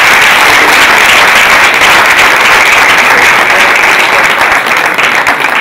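Audience applauding loudly, the clapping thinning out near the end.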